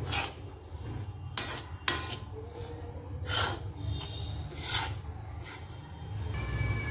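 Steel spoon scraping and stirring flour being roasted in an iron kadhai. There are about six short rasping scrapes against the pan, irregularly spaced, over a steady low hum.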